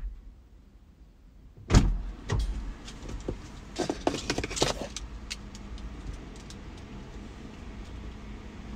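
Handling noises inside a parked car: one loud thump about two seconds in, then a cluster of clicks and rattles around four seconds in, followed by scattered light ticks over a low steady hum.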